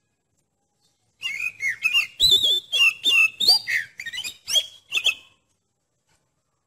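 Oriental magpie-robin (kacer) singing: a run of varied whistled notes mixed with sharper, harsher notes, starting about a second in and lasting about four seconds.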